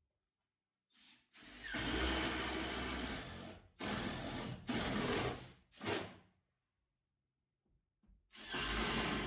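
Power drill boring holes into wooden floorboards in several bursts: one long run of about two seconds, three short ones, a pause, then another run near the end.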